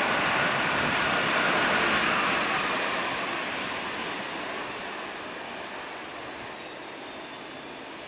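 A Boeing 767-300's Rolls-Royce RB211 jet engines roar as the airliner rolls along the runway past the listener. The roar fades steadily after the first couple of seconds, with a thin high whine that slowly falls in pitch as it moves away.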